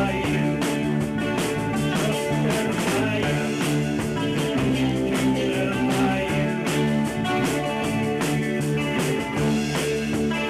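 Rock band playing live: electric guitars holding chords over a steady drum-kit beat.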